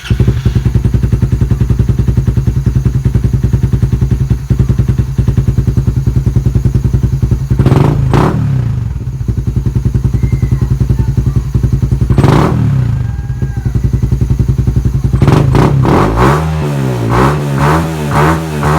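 Suzuki Raider 150 Fi's single-cylinder four-stroke engine running loud through a gutted (kalkal) exhaust pipe, idling with two sharp throttle blips about eight and twelve seconds in, then a quick string of revs near the end.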